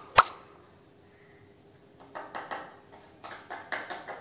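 A spoon knocks sharply once against a plastic funnel, then scrapes and taps against it in a quick irregular run from about halfway through, as baking powder is worked through the funnel into a balloon.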